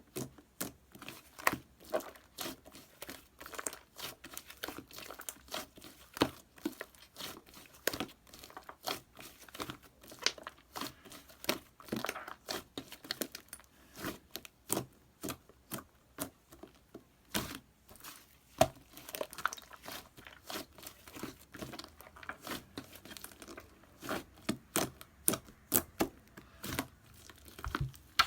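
Hands squishing and poking slime, making an irregular run of sticky clicks, pops and crackles several times a second.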